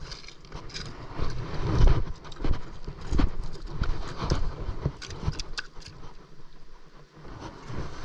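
Handling noise: irregular knocks, scuffs and rustles as a tackle bag is rummaged and gear is moved about on a sandstone rock ledge, over a low wind rumble on the microphone.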